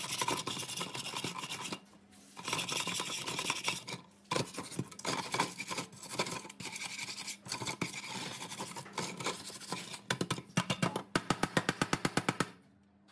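Hand wire brush scrubbing rust and flaking paint off the steel platter and frame of an old spring dial scale, in quick back-and-forth strokes with a couple of short pauses. Near the end comes a burst of fast, even strokes, about eight a second.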